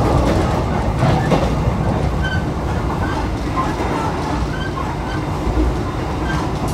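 Running noise inside an Argo Cheribon economy-class train coach on the move: a steady rumble of wheels on the track, with a few faint short squeaks scattered through.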